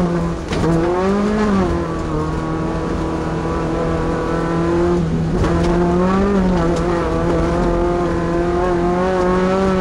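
Class 2 off-road race truck's engine running hard at high, fairly steady revs, with brief dips and rises in pitch about half a second in, around a second in, and again about five and six seconds in.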